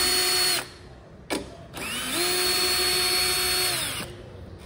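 Power drill spinning out the scooter seat's mounting bolts. One run stops about half a second in; after a short click the drill spins up again near two seconds and winds down about two seconds later.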